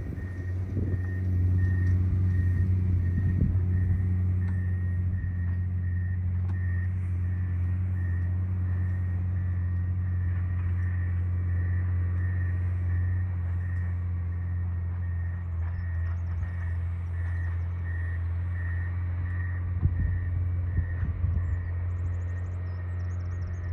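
John Deere 670GP motor grader's diesel engine running steadily under work, with its reversing alarm beeping in an even rhythm, just under twice a second.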